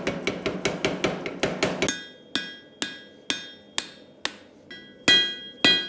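Power hammer pounding a red-hot steel axe head held in tongs, about seven rapid blows a second. After about two seconds it gives way to slower hammer blows on the anvil, about two a second, each with a bright metallic ring.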